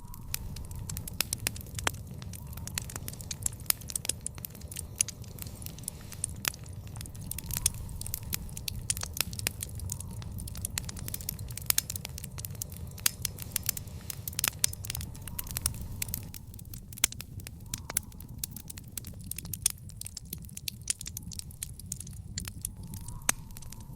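Wood fire in a backyard fire pit crackling, with frequent sharp pops and snaps over a steady low rumble.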